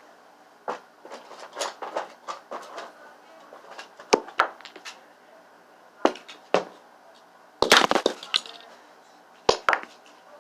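Irregular sharp knocks and clacks of hard objects striking, about a dozen spread out, with a quick burst of clattering about eight seconds in.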